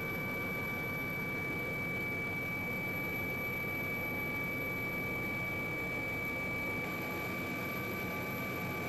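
Steady engine noise with a constant high whine over it, unchanging throughout.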